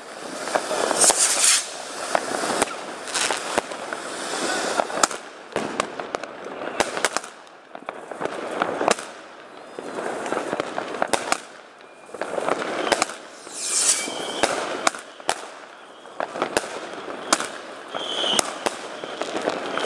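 Consumer firework batteries (cakes) firing. Shots are launched one after another and burst overhead as many sharp bangs, coming in irregular clusters every second or two.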